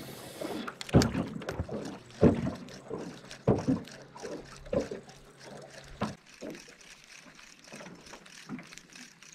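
Small waves lapping and slapping against a small aluminum boat's hull, in irregular splashes about a second apart that fade out in the second half.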